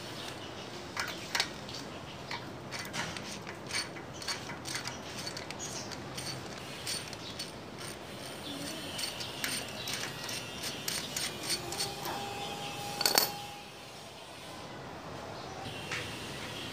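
Hand tools clicking and tapping on metal as a motorcycle engine is worked on, an irregular run of small clicks with a louder clank about thirteen seconds in.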